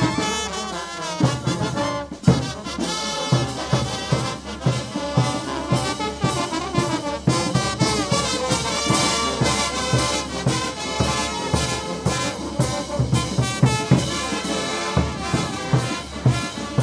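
Brass band playing a lively dance tune, with trumpets, trombones and sousaphones over a steady drum beat.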